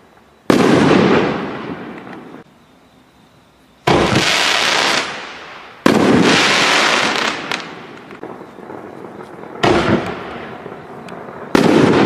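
Sunwing Dragon Strobe Smash canister shells bursting overhead: five sharp bangs a few seconds apart, each dying away over one to two seconds with a crackling, echoing tail.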